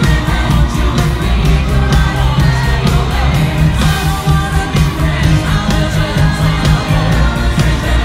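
Music with singing over a steady drum beat and heavy bass.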